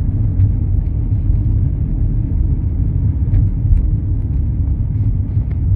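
Steady low rumble of a car driving along a town street: engine and tyre-on-road noise.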